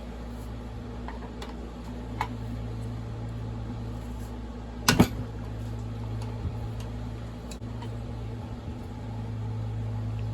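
A steady low hum throughout, with occasional light clicks of hand tools on metal and one louder clink about five seconds in, as parts are taken off the chainsaw.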